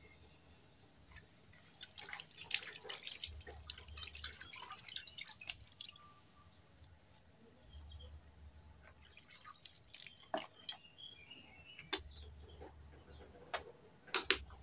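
Water splashing and dripping as a plastic motorcycle tail-light lens is washed with soapy water over a clay pot and shaken off; a busy run of splashes in the first few seconds, then scattered drips and a few sharper knocks near the end.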